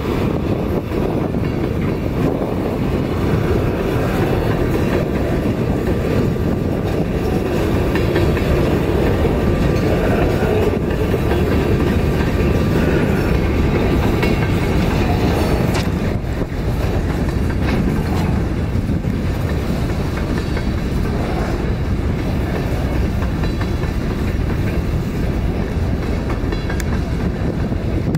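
Freight train of open-top hopper cars rolling past close by, steel wheels running on the rails in a loud, steady, continuous noise.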